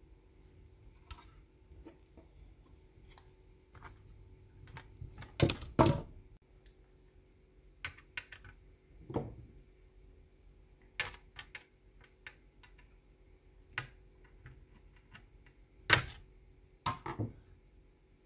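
Irregular clicks and knocks of small hard parts being handled, from a radio alarm clock being worked on. The loudest knocks come about five to six seconds in and again near sixteen seconds.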